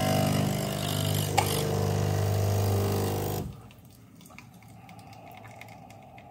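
Magimix Nespresso capsule coffee machine's pump buzzing steadily while it brews espresso into a glass mug. The buzz cuts off about three and a half seconds in as the pour ends, leaving coffee dribbling from the spout.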